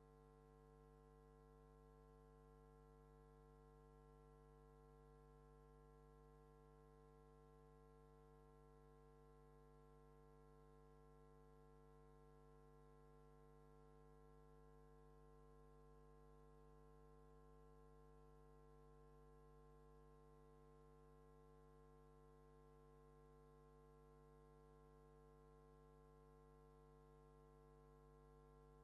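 Near silence with a faint, unchanging hum made of several steady tones.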